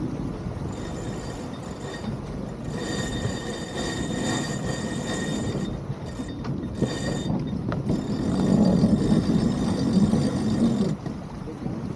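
Wind rushing over the microphone and water rushing past the hull of a yacht under sail, louder in the second half. About three seconds in, a high thin whine sounds for about three seconds.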